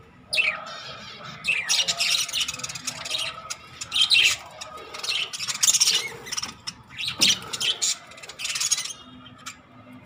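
A flock of budgerigars chirping and chattering in quick, overlapping bursts. The chatter dies down near the end.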